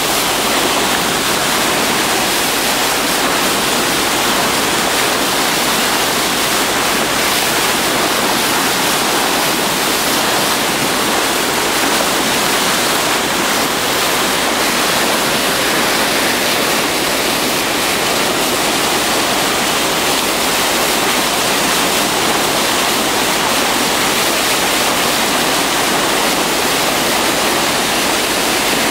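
Steady rush of a ship's bow wave breaking and churning along the hull as the vessel moves under way.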